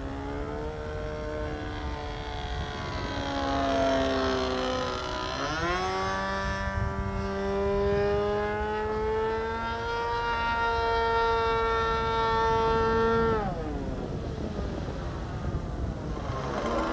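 Engine of a Phoenix Edge 540 RC aerobatic model plane with a can muffler, flying: a steady buzzing tone whose pitch rises sharply about five seconds in, holds high, then drops about thirteen seconds in. Wind rumbles on the microphone underneath.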